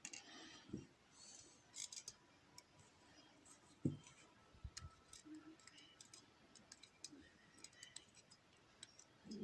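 Faint, scattered small clicks and taps of a pin tumbler lock being taken apart, its spool pins, key pins and springs handled as they are removed. The loudest is a single low knock about four seconds in.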